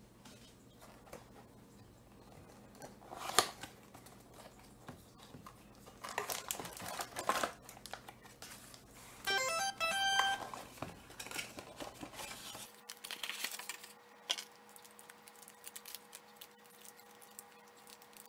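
Rustling and crinkling of a cardboard box and a plastic bag as a shower-hose nanobubble adapter is unpacked by hand, in short bursts. About nine seconds in there is a brief electronic chime.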